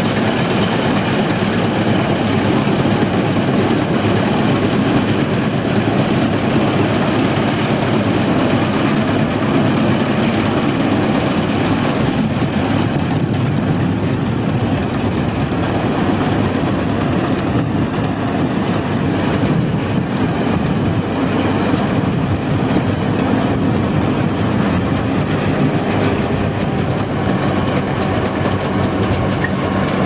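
Punni Grain Cruiser combine harvester working through standing wheat. Its engine and cutting and threshing machinery make a loud, steady, dense mechanical clatter.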